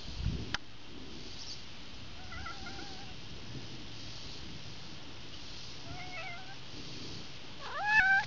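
Domestic cat meowing three times: two faint wavering meows, then a louder meow rising in pitch near the end. A brief low bump comes right at the start.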